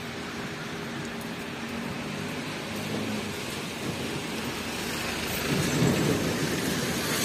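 Steady rain falling on a wet street and pavement, with a low rumble swelling up about five and a half seconds in.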